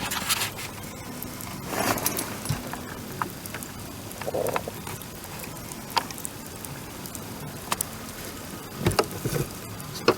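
Wood bonfire crackling, with sharp pops at irregular intervals and a few louder clusters of crackles.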